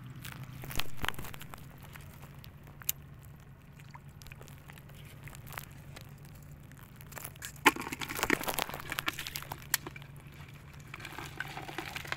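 Crackling, crunching handling noise with scattered sharp clicks, busiest from about eight seconds in, over a low steady hum.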